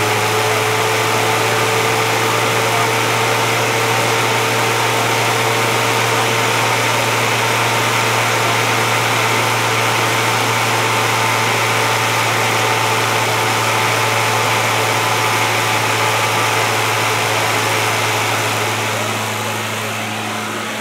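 Cable car drive machinery running: a steady low hum under a loud hiss, with a thin whine that slowly drifts lower in pitch. It eases off near the end.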